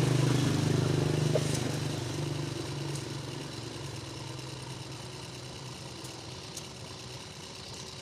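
A motorcycle engine running steadily as it passes on the street, fading away over the first three seconds or so and leaving faint street background.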